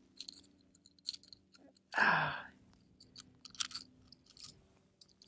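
Light clicks and crackles of a freshly landed largemouth bass being handled close to the microphone, with one loud breathy exhale, falling in pitch, about two seconds in.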